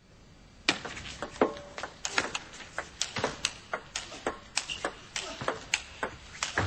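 Table tennis rally: the celluloid ball clicking sharply off the bats and table in quick, uneven succession, starting about a second in.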